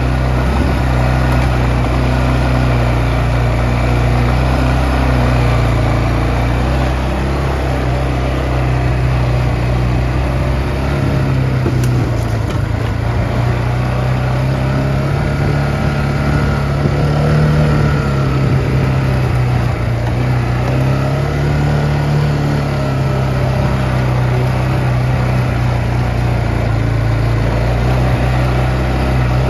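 Kawasaki Bayou 250 ATV's single-cylinder four-stroke engine running steadily while riding, its pitch rising and falling gently with the throttle.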